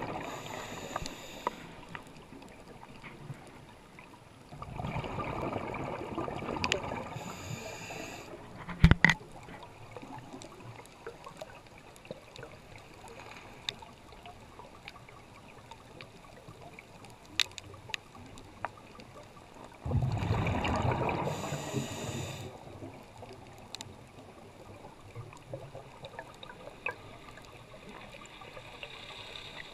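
Scuba diver's exhaled bubbles, heard underwater: two gurgling bursts of two to three seconds each, about five seconds in and again about twenty seconds in. Between them a faint hiss with scattered sharp clicks, and one loud knock about nine seconds in.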